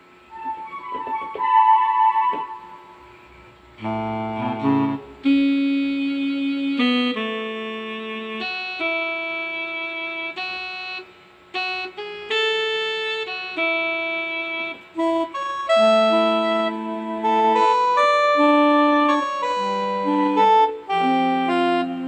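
Yamaha PSR-E333 portable keyboard playing a melody in one of its built-in voices: a run of single held notes, each with a full, bright tone.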